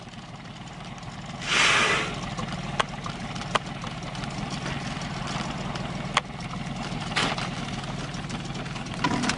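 Small boat's outboard motor idling steadily, with a loud rushing hiss for about half a second near the start and a few sharp clicks scattered through.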